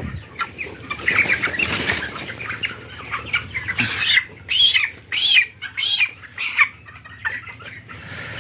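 A broiler chicken flapping its wings as it struggles in the hand, then giving about four loud squawks in a row, in alarm at being held.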